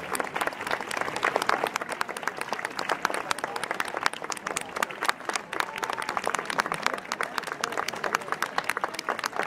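Crowd applauding, a dense, steady patter of many hands clapping, with voices mixed in.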